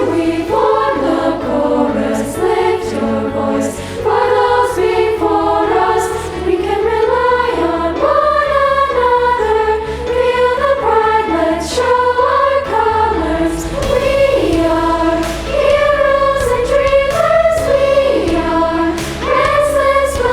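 Girls' choir singing a melodic song over a sustained low accompaniment.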